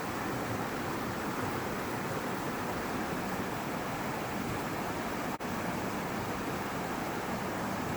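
Steady, even rushing noise with no distinct events, cut by a momentary dropout about five seconds in.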